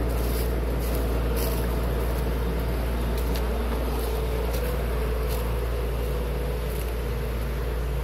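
Steady engine drone of a water tanker truck running while it draws water from the stream, holding an even pitch.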